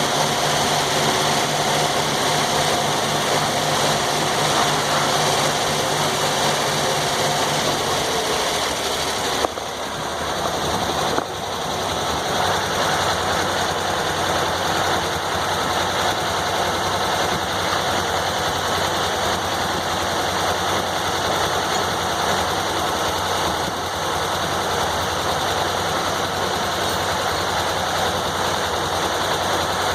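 Sawmill engine running steadily, its pitch shifting about eight seconds in, followed by two brief dips in loudness.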